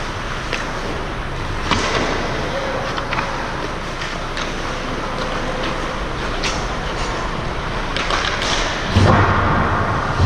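Pickup hockey game on a rink: scattered sharp clacks of sticks and puck, with one heavy thud about nine seconds in.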